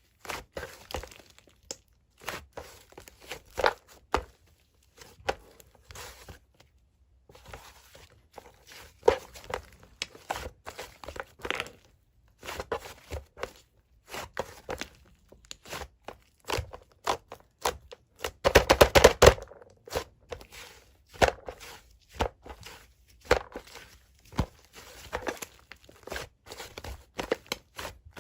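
Mint-chocolate ice-cream slime being squished and poked by hand, making irregular sticky clicks and pops, with a dense run of crackling about two-thirds of the way through.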